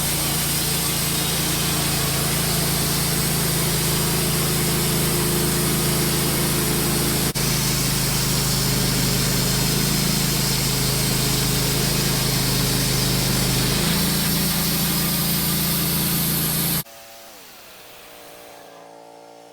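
Wood-Mizer LT15 band sawmill running steadily under load, its blade cutting through a white pine log. Near the end the level drops sharply and the engine winds down to a low idle.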